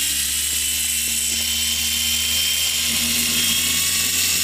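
Internal high-RPM gyro flywheel of a JXD mini electric RC racing motorbike spinning: a loud, steady high-pitched whine over a low hum, the flywheel running to keep the stationary bike balanced upright.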